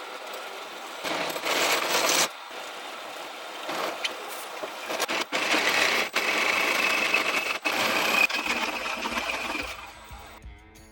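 A power tool running in several short cut-together bursts, with a steady high whine through the longest one. Guitar music comes in near the end.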